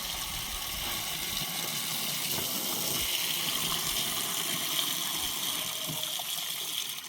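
Steady rush of running water, a little louder from about three seconds in.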